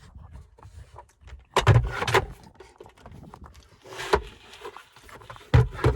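Hard plastic center-console trim in a pickup cab being handled and pried: scattered knocks and clunks, the loudest a cluster about a second and a half in, another around four seconds and one near the end.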